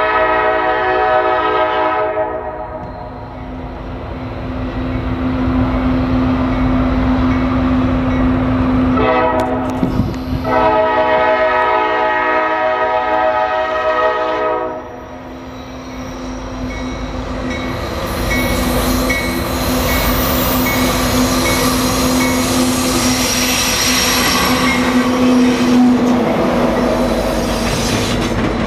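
Norfolk Southern diesel locomotive's air horn blowing two long chord blasts, the first ending about two seconds in and the second starting about nine seconds in and lasting about five seconds. After that, the approaching loaded coal train grows louder as its lead locomotives come alongside near the end.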